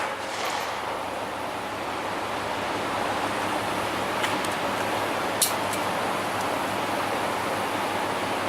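Steady rushing background noise, with two faint, short, sharp cracks a little over four and about five and a half seconds in.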